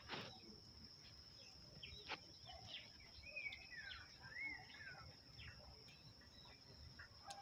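Faint outdoor ambience: a steady high-pitched insect drone, with a bird giving a couple of short rising-and-falling calls around the middle, and a few soft knocks.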